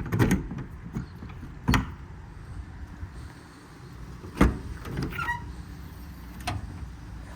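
Metal service-body compartment doors and their latches clunking as they are worked, about five knocks with the loudest midway, and a short squeak just after it.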